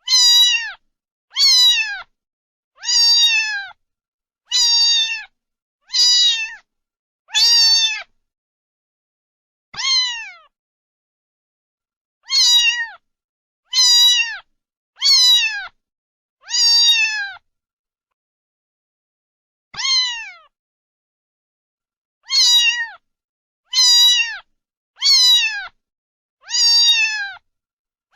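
A cat meowing over and over, about fifteen short high meows, each dropping in pitch at its end. There is dead silence between them, and two longer pauses.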